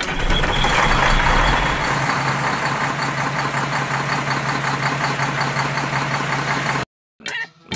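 Tractor engine running steadily, then cutting off abruptly near the end.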